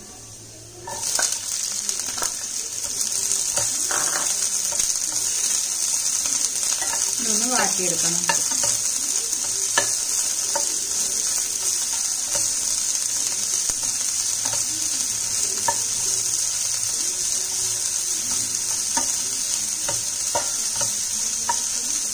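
Food frying in hot oil in a pan, the sizzle starting suddenly about a second in as something goes into the oil and then holding steady, with stirring and occasional spatula taps against the pan.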